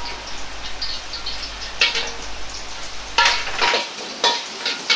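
Chopped ginger sizzling in a spoonful of hot oil in a wok, with a metal ladle clinking and scraping against the wok several times as it is stirred. A low rumble underneath cuts out about three-quarters of the way through.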